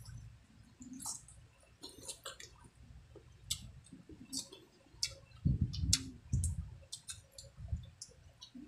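Close-miked eating sounds: irregular wet lip smacks and mouth clicks from chewing squid adobo with rice, with a cluster of heavier smacking chews a little past the middle.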